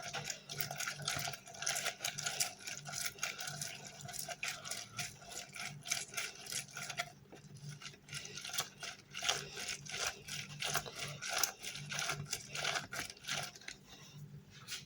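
Onion being grated on a metal hand grater: fast, repeated scraping strokes, pausing briefly partway through and again near the end.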